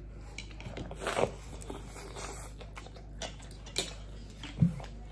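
Chewing sounds of noodles and sausage, with small clicks of forks on plates and a short, loud thump near the end.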